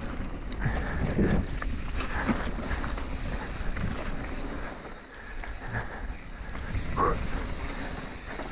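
Mountain bike descending a dry dirt singletrack: wind buffets the microphone over the rumble of knobby tyres on the dirt, with scattered clicks and rattles from the bike over rough ground.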